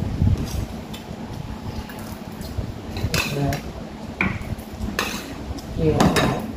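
Spoons and chopsticks clinking against ceramic plates and steel bowls while people eat, several separate sharp clinks over a low background hum.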